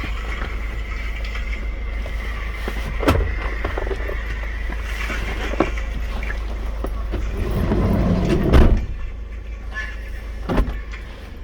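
Steady low rumble inside a car's cabin, with a few brief knocks, the loudest about eight and a half seconds in.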